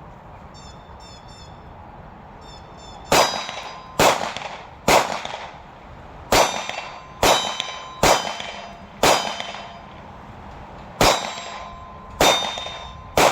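Glock 43 9mm pistol firing a string of ten shots about a second apart, with a short pause before the last three, each shot followed by a metallic ring. The shooter is testing whether the magazine now locks the slide back after the last round.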